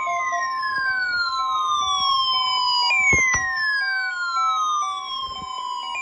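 Weather radio alert audio: a steady 1050 Hz warning alarm tone, with a siren-like electronic sweep over it that falls in pitch and restarts about every three seconds.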